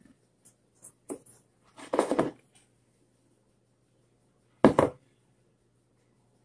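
Hands scooping and rubbing flour in a plastic mixing bowl: a few light clicks, a short rustle about two seconds in, and a single sharp knock, the loudest sound, near five seconds in. A faint steady hum runs underneath.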